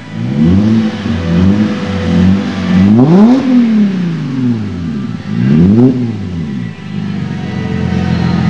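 Mercedes CLS 350 V6 free-revving through a MagnaFlow cat-back exhaust with X-pipe. The engine is blipped up and let fall back several times, its pitch rising and dropping with each rev, with the sharpest revs about three and six seconds in.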